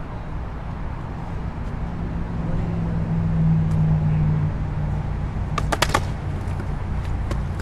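A steady low rumble, with a cluster of sharp clacks from a skateboard on concrete about six seconds in.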